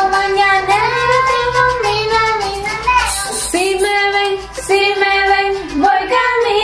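Recorded song playing: a high singing voice holding long, drawn-out notes over a steady bass.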